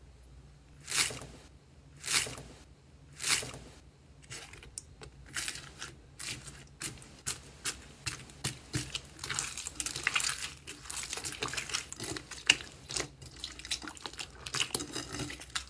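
Hand pressing into a bowl of tiny white foam beads, three crunchy presses about a second apart, then kneading blue clear slime through the beads with quick crackling and small wet pops that grow denser.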